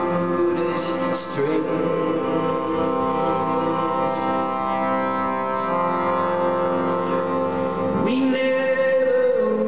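Harmonium playing sustained, droning chords. About eight seconds in, a man's voice slides up into a long held note over them.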